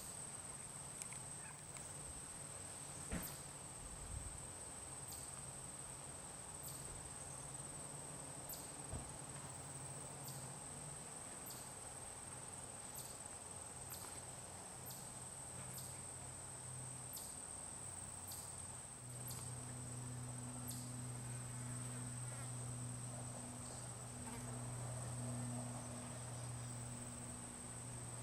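A steady, high-pitched insect trill runs throughout, with faint ticks a little more than once a second. A low hum comes in louder about two-thirds of the way through.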